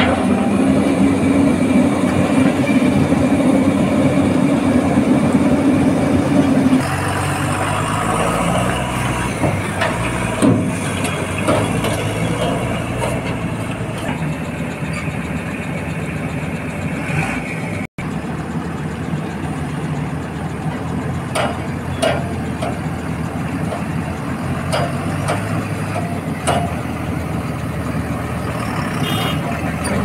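Hyundai 215L crawler excavator's diesel engine running steadily under working load while it digs and swings mud. Its note drops about a third of the way in, and a few sharp knocks of the bucket and steelwork come later.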